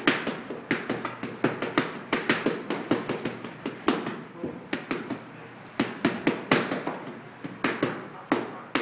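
Boxing gloves smacking focus mitts in a fast mitt-work drill: many sharp slaps, several a second, in quick irregular flurries of combinations.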